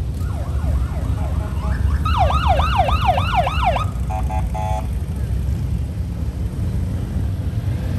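Police motorcycle sirens yelping in quick rising-and-falling sweeps, about four a second, for nearly four seconds, then a short pulsing horn tone, over the steady low rumble of the police motorcycles' engines riding past.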